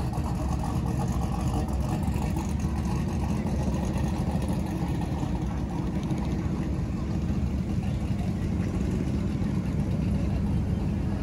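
Classic cars' engines running as the cars cruise slowly past one after another, a steady low sound.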